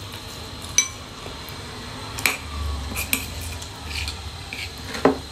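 Metal spoon and fork clinking and scraping on a ceramic plate, with about half a dozen short sharp clinks spread through.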